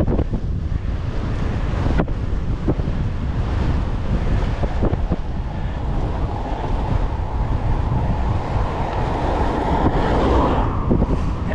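Wind buffeting the microphone of a camera on a moving bike, a heavy, continuous rumble. A rushing noise builds from about six seconds in and drops away shortly before the end.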